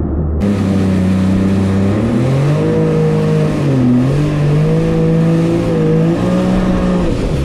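Yamaha WaveRunner jet ski engine running under throttle, its pitch rising about two seconds in, dipping briefly around four seconds and again near the end as the throttle eases and comes back on. A steady hiss of wind and water runs underneath.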